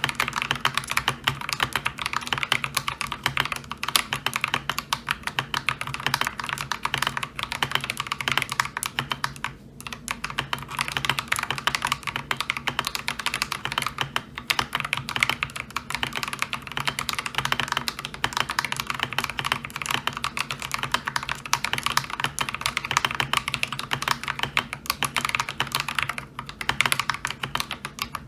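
Continuous fast typing on an Akko 3098B mechanical keyboard with lubed Akko Lavender Purple tactile switches, a steady stream of key clicks with a brief pause about ten seconds in.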